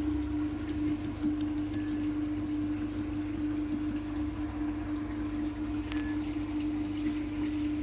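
Aquarium air pump humming steadily while an airstone bubbles air up through the tank water, with one light tick about six seconds in.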